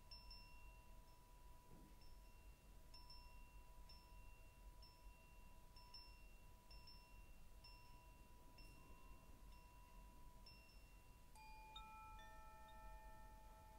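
Very faint background music of soft, sustained chime-like tones with light repeated higher notes; a new set of notes comes in near the end.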